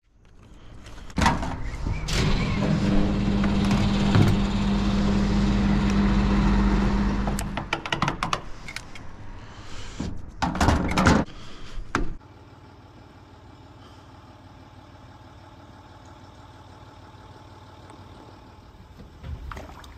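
A motor running with a steady, fairly loud hum for about six seconds. It gives way to a few seconds of clicks and knocks, then a quiet steady hum.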